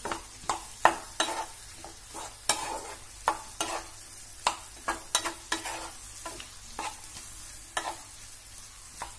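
Wooden spatula stirring and scraping cut okra and sliced onion around a non-stick frying pan: irregular scrapes and taps, a few a second, over a light sizzle of the vegetables sautéing in oil.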